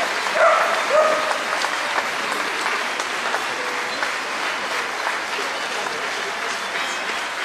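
Large crowd applauding outdoors, with a couple of voices calling out about half a second and a second in; the clapping then slowly dies down.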